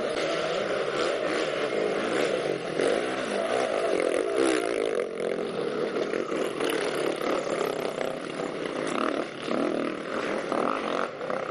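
Several enduro dirt-bike engines revving unevenly under load, their pitch wavering up and down continually.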